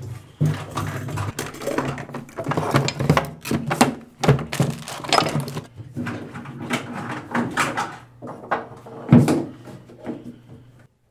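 Rummaging at a bathroom medicine cabinet: irregular knocks, clicks and clatter from the mirrored cabinet door and the things inside it, with a louder thump about nine seconds in.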